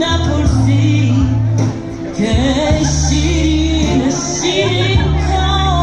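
A Persian song playing loudly: a singer's voice over long held bass notes that change every second or so.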